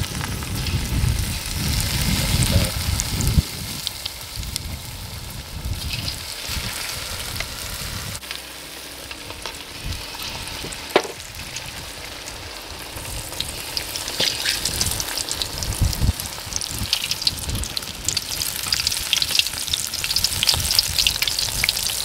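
Shallow oil sizzling and crackling as beer-battered horseneck clam pieces fry, the crackle growing denser and louder in the last third. A few sharp knocks stand out, the loudest about halfway through.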